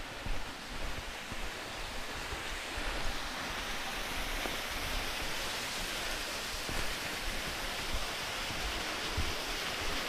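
Steady rush of falling and running water, getting louder after the first couple of seconds, with some wind rumble on the microphone.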